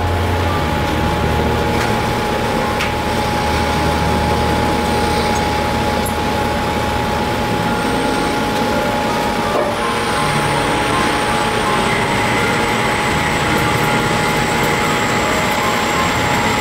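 Metal lathe running steadily: a continuous mechanical noise with a constant thin whine over it.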